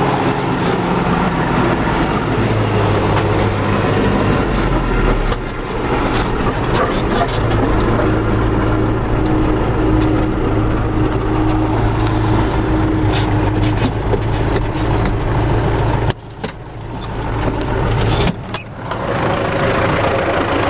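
MTZ tractor's diesel engine running under way, its engine speed changing several times. The loudness drops sharply about 16 seconds in and again about 18 seconds in, then comes back. The freshly repaired drive axle and gearbox are running without axle hum.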